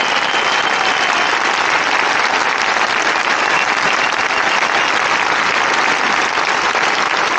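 A crowd of tens of thousands applauding, a dense, steady clapping that holds at the same level throughout.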